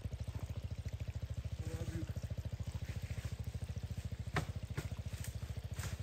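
A 200 cc motocross bike's engine idling steadily, an even, fast putter of about a dozen beats a second. A single sharp click comes a little past the middle.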